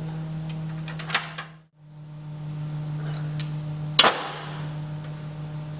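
Sharp clicks and knocks of oil line fittings and mounting hardware being handled at a motorcycle engine, the loudest a single sharp knock about four seconds in that rings briefly, over a steady low hum.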